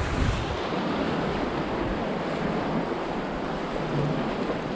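Ocean surf washing against the boulders of a rock jetty, a steady rush of water, with wind blowing on the microphone.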